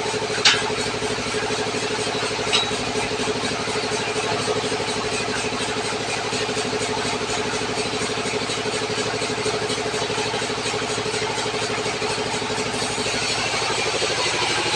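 Tractor engine running steadily at an even speed, with two sharp knocks in the first three seconds.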